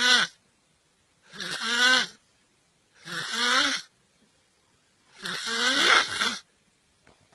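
A person snoring: a string of loud snores, one about every second and a half, each rising and falling in pitch, the last one a little longer.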